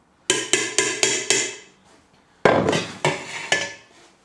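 Metal serving spoon knocking against a stainless-steel pan and plate while dishing up rice: about five quick taps in the first second or so, then a louder clatter about two and a half seconds in, followed by a few more knocks.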